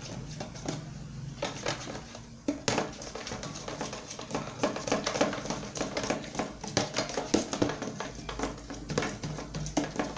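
Spoon stirring a slime mixture in a container, with many quick clicks and scrapes of the spoon against the sides, busier from about two and a half seconds in.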